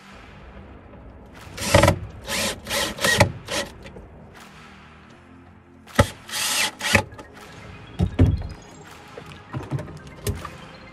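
Cordless drill driving stainless steel screws into a battery tray in short spurts, about five quick runs in the first few seconds and another run about six seconds in, with a few knocks later on. Background music plays throughout.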